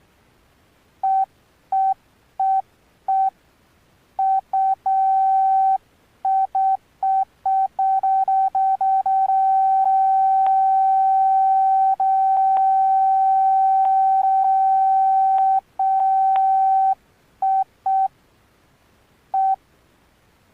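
Alcatel OneTouch Retro 2017B phone's key tones: one steady mid-pitched beep, sounded in short irregular beeps as keys are pressed, then held for about six seconds with a few faint clicks on top, then a few more short beeps near the end.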